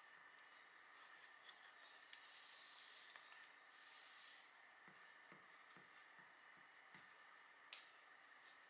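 Faint rubbing and scraping of a thin knife blade run around between a baked sponge cake and the side of an aluminium tube pan to loosen it. There are two longer scrapes about two to four seconds in, and a few light knocks after them.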